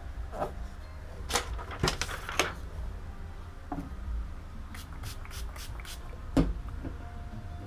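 Trigger spray bottle of soapy water squirted in short bursts, including a quick run of about five squirts in a row, with a single louder knock a little later, the loudest sound here.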